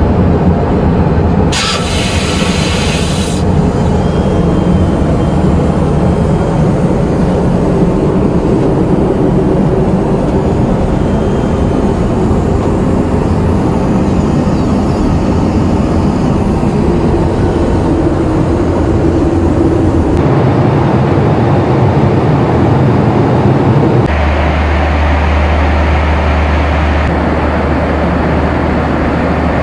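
Steady rumble of a Boeing 737-800 airliner cabin in flight, from engine and airflow noise. It shifts suddenly in tone twice late on. A brief hiss comes about two seconds in.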